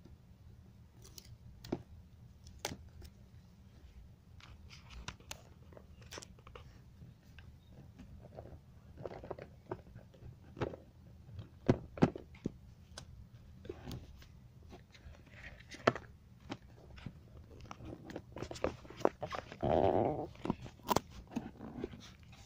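Hands handling a smartphone's cardboard box and paper packaging: scattered taps, clicks and crinkles, with a louder rustle near the end.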